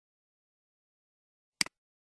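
A single computer mouse click about one and a half seconds in: a sharp press and release in quick succession.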